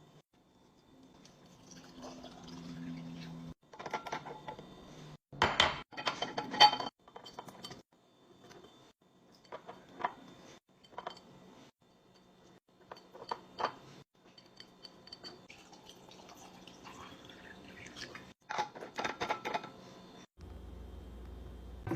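Glass bottles and containers clinking and knocking as they are set down and arranged in a fridge. The sound comes in a string of short bursts broken by abrupt cuts, with the loudest clatter about six seconds in and again near the end.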